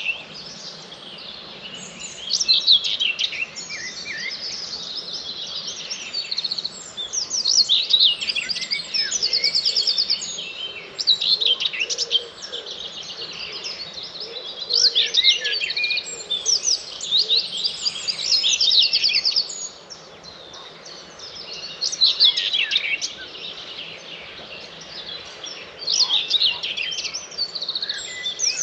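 Dawn chorus: many songbirds singing at once, their songs overlapping, with fast trills of rapidly repeated notes among them.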